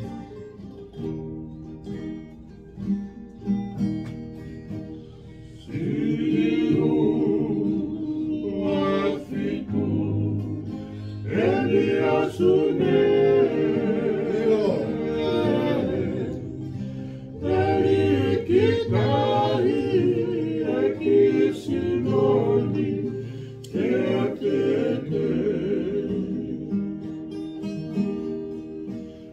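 Acoustic guitars and ukuleles strummed together, with a group of men's voices joining in harmony about six seconds in.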